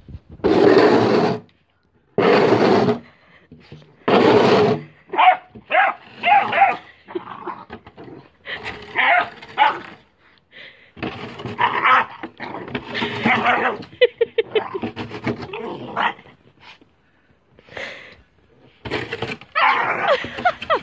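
An American Staffordshire terrier puppy growling, yipping and barking as it tussles with a metal snow shovel. In the first few seconds the shovel blade scrapes across gravelly dirt three times, loud and rasping, and after that the puppy's higher, wavering growls and yips mix with shorter scrapes.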